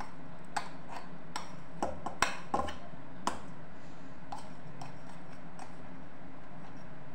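Light knocks and clinks of a stainless-steel mixer-grinder jar tapping against the rim of a steel pot as ground chickpea paste is emptied out of it. About a dozen taps, close together over the first three seconds or so, then a few fainter ones, over a steady low hum.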